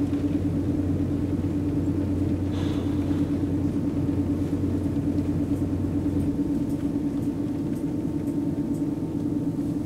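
Steady low engine drone with a constant hum, heard from inside a bus riding a car ferry; a deeper hum drops out about six seconds in.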